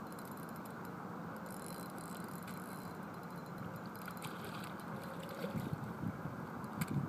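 Steady outdoor rushing noise, wind or moving water, with a few faint ticks. Wind buffets the microphone with low, uneven thumps in the last second and a half.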